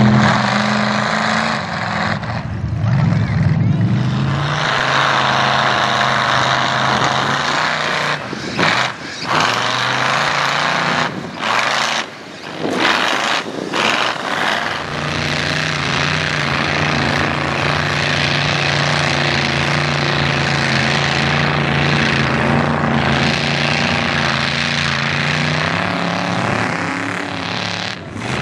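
Modified mud truck engines running hard and revving as the trucks churn through deep mud. The engine pitch climbs a few seconds in, the sound breaks off briefly several times around the middle, then holds at steady high revs.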